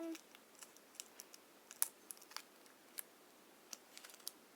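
Faint, irregular small clicks and crinkles of a blade cutting slits into the foil wrapper of a trading-card booster pack.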